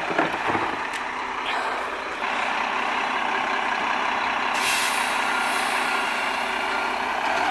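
Mack LEU refuse truck's diesel engine running, getting louder about two seconds in, with a few clanks at the start and a sharp burst of air hiss about five seconds in, typical of the air brakes being released.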